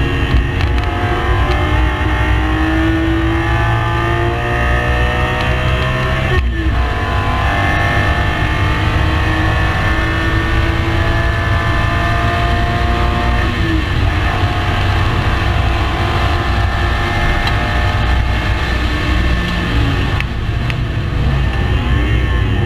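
Race car engine under hard acceleration, its pitch climbing steadily through each gear, with sharp upshifts about six and about thirteen seconds in. The revs change again near the end.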